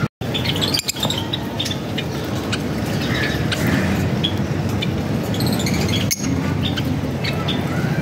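Lovebirds chirping in short, scattered calls over a steady background noise, with a brief cut-out of all sound near the start.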